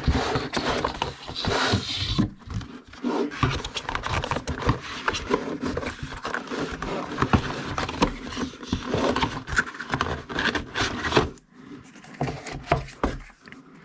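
Cardboard packaging being handled: box flaps and inner cardboard trays scraping, rubbing and tapping in quick, irregular bursts as items are lifted out. It goes briefly quieter near the end.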